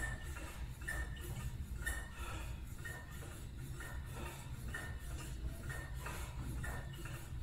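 Cable pulley machine clinking during repeated arm curls: short metallic clinks about once a second, over a steady low hum.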